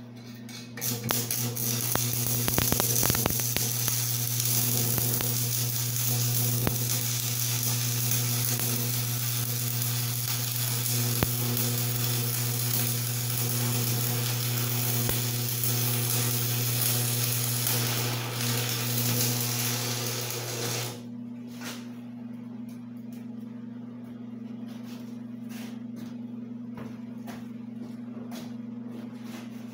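Electric arc welding: the arc crackles steadily for about twenty seconds over the welding machine's low hum, then stops suddenly, leaving the welder humming on its own.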